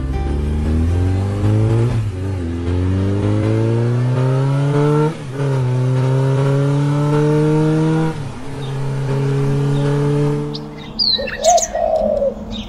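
Motorcycle engine accelerating up through the gears: its pitch climbs, drops back at a gear change about two, five and eight seconds in, then holds steady before fading away. Birds chirp near the end.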